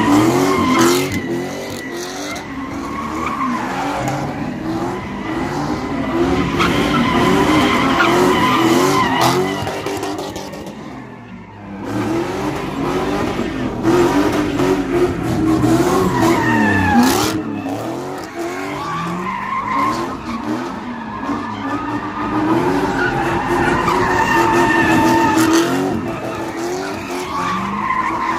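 Cars doing donuts: engines revving up and down under hard throttle while the rear tyres spin and screech on the pavement. The noise eases off briefly a little before halfway, then builds up again.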